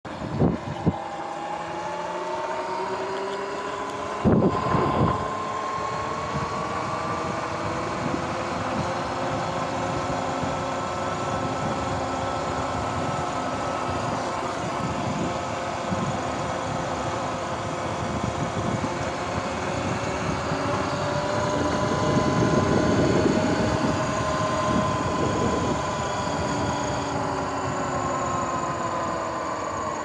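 Sur-Ron X electric dirt bike under way: the electric motor and drive whine, their pitch slowly rising and falling with speed over steady road and wind noise. A few sharp knocks come in the first five seconds.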